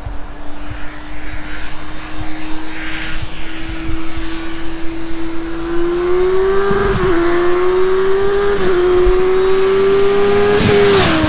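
Kawasaki Ninja 1000's inline-four with Yoshimura slip-on exhausts, catalytic converter still fitted, approaching under acceleration: a steady engine note climbing and growing louder, upshifting twice, then dropping in pitch as the bike passes near the end.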